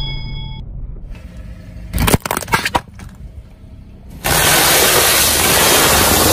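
Things crushed under a car tyre. A short notification-style bell chime at the start, a cluster of sharp cracks about two seconds in, then from about four seconds a loud steady crackling hiss as the wheel rolls over wrapped balls.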